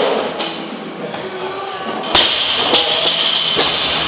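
Medicine balls thudding on a wall target and being caught during wall-ball shots, about five knocks with the loudest about two seconds in, over background music and voices.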